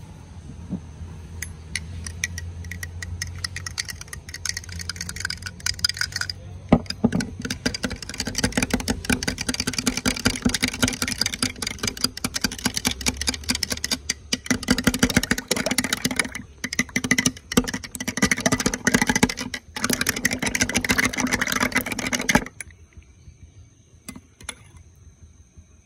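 Metal teaspoon stirring ice and juice in a drinking glass, a fast run of clinks against the glass. It stops abruptly a few seconds before the end. Under the first few seconds there is a low rumble with only scattered clinks.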